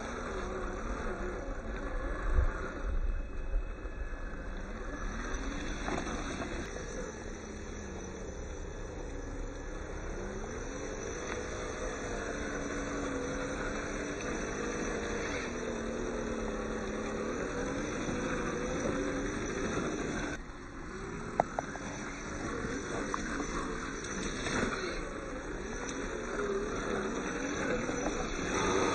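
Scale RC crawler (DF 4S Pro Jeep Wrangler JK) driving, its electric motor and gearbox whining in a pitch that rises and falls with the throttle as the tyres churn through mud and shallow water. A few sharp knocks sound in the first few seconds and again past the middle.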